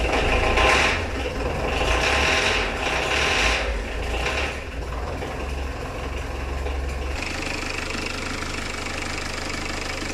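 Four-cylinder Peugeot diesel engine running, blipped louder a few times in the first half and settling to a steadier idle about seven seconds in. It knocks under throttle, a fault the owner puts down to the injectors or old fuel.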